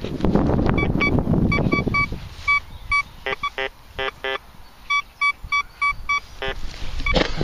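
Thracian metal detector sounding off as its search coil is swept over a dug hole: a run of short high beeps, a few a second, with several lower, buzzier tones mixed in, signalling a target still in the ground. A low rumble fills the first two seconds.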